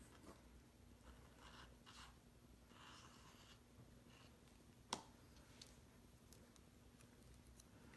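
Near silence, with faint rustling and scraping of hands working liquid glue onto a paper die-cut, and one sharp click about five seconds in.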